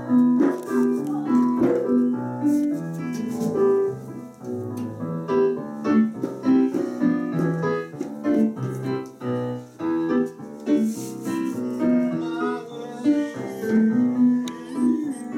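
Piano music: a steady run of separate notes over a lower line of bass notes.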